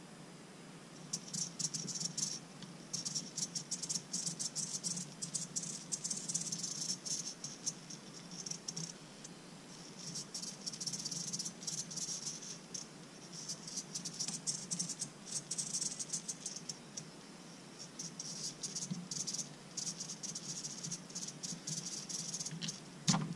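Micro hobby servo driven from a servo tester, its small motor and plastic gears whirring in a high buzz. The whirring comes in repeated bursts of a few seconds each as the tester's knob is turned. A sharp click comes near the end.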